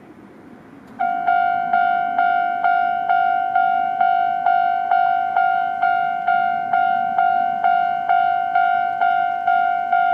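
Japanese level-crossing electronic warning bell starting about a second in, then sounding a steady ding-ding at a little over two strokes a second, each stroke fading before the next. It signals an approaching train, with the barriers coming down.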